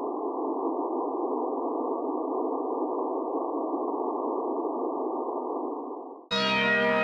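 A steady, muffled droning hiss with no low or high end. It fades slightly and cuts off about six seconds in, where music starts abruptly.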